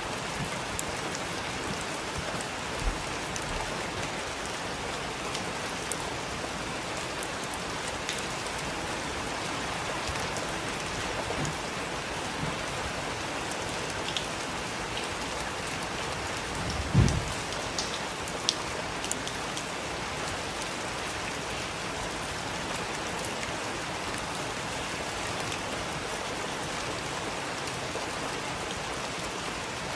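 Heavy rain falling steadily, with scattered sharp drop ticks and one brief low thump a little past halfway.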